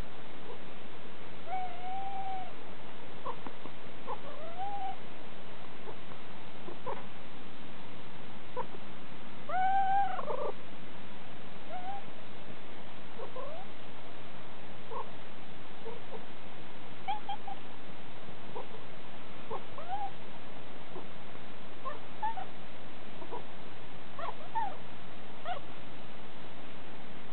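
A domestic cat meowing repeatedly: a string of short meows that rise and fall, spaced a second or a few seconds apart, with one longer, louder meow about ten seconds in.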